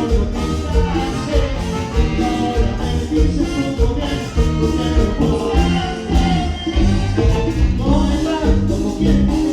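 Live band playing Latin dance music, an instrumental passage without vocals over a steady beat.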